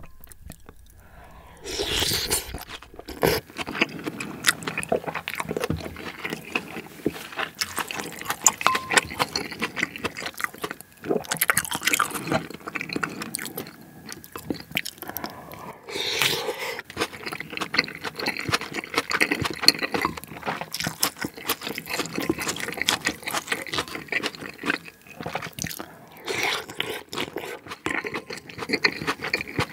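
Close-miked mukbang eating sounds: wooden chopsticks and a spoon clicking and scraping in a ceramic bowl of pork-and-rice soup (dwaeji-gukbap), with wet chewing and crunching.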